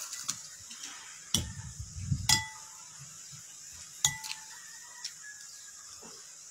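A metal spoon clinking against a glass bowl three or four times, the glass ringing briefly after the louder strikes.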